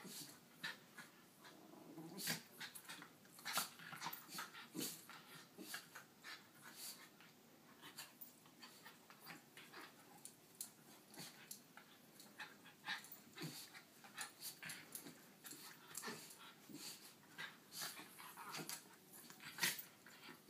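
Two miniature schnauzers scuffling over a dog bed: faint dog vocal noises mixed with many irregular short rustles and scrapes of paws and bodies on the bed and carpet.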